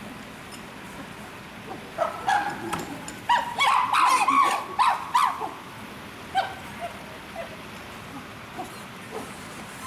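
Chimpanzees calling: a run of short, high-pitched calls, loudest about four seconds in, with one more call a little later.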